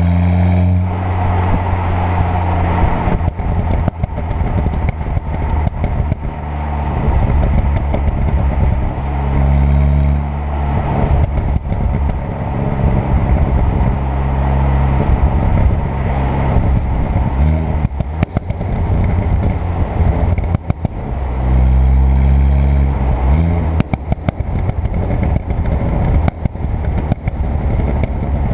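Turbocharged 2.0 TFSI four-cylinder car pulling hard, its engine note rising, alternating with long runs of rapid exhaust crackles and bangs on the overrun when the throttle is lifted.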